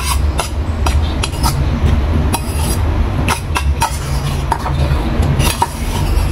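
Metal spoon clinking and scraping against a stainless steel bowl during eating: many short, sharp clinks at irregular intervals, some ringing briefly, over a steady low hum.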